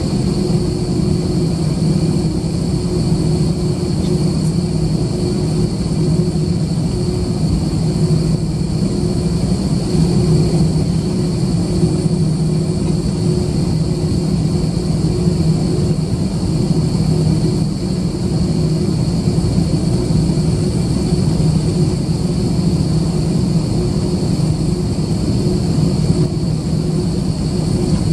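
Airbus A320-214's CFM56 jet engines running steadily at low thrust while the aircraft taxis, heard inside the passenger cabin: a steady low hum with a high engine whine above it.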